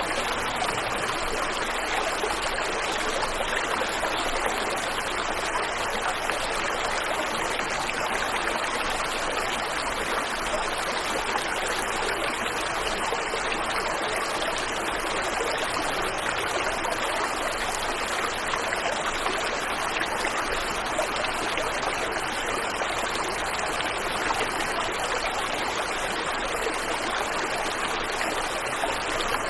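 Waterfall and river water rushing, a steady even hiss of falling and flowing water.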